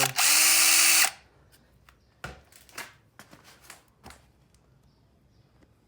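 A power drill runs in one short burst of about a second, its motor whine rising as it spins up, working on a stripped drain plug. A few light clicks and knocks of tool handling follow.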